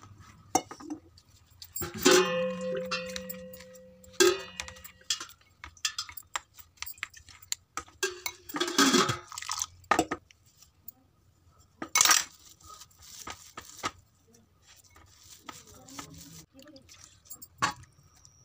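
A steel spoon clinks and scrapes against a glass bowl as ground spices are mixed into a paste. About two seconds in, a metal strike rings on with a steady tone for about two seconds until another knock cuts it short.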